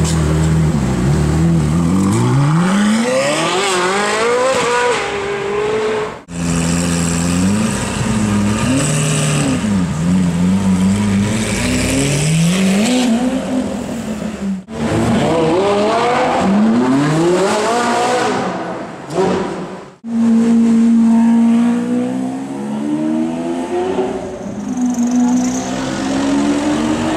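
Supercar engines revving and accelerating in four short clips cut together, the engine note climbing repeatedly in pitch through the gears and blipping up and down, with a steadier, higher note in the last clip.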